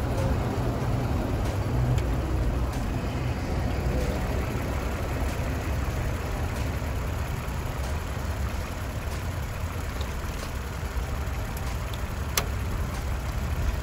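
Toyota Sienna's 3.5-litre V6 idling steadily as it warms up after a radiator replacement. There is a single sharp click near the end.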